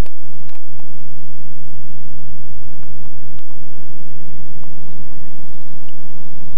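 A loud, steady low hum with an even, engine-like drone, broken by a few short clicks: one near the start, one about half a second in and one about three and a half seconds in.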